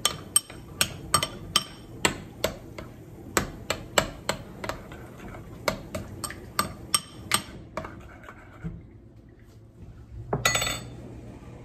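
Metal spoon clinking and scraping against a ceramic bowl while stirring and breaking up chunks of partly cooked egg whites in oatmeal, with sharp irregular clicks about three a second that stop after about seven seconds. A brief louder noise follows near the end.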